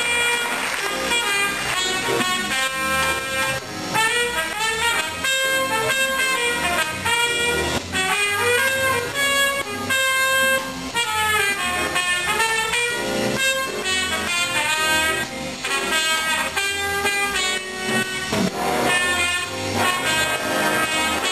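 Jazz big band playing swing, with a trumpet soloing a line of quickly changing notes over the band.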